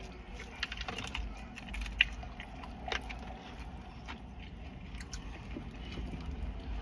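Quiet eating sounds: chewing and scattered light clicks and taps from handling a plastic takeout container, over a low steady hum.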